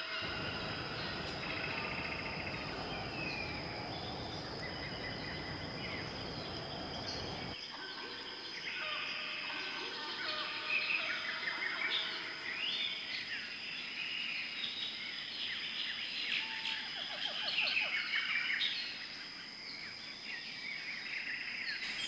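Forest ambience of many small birds chirping and trilling, busiest in the middle and later part, over a steady high whine. A low rushing noise underneath stops abruptly about seven and a half seconds in.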